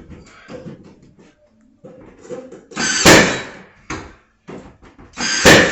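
Nail gun firing twice, about two and a half seconds apart, each shot a loud sharp crack, as a board is nailed up into the ceiling.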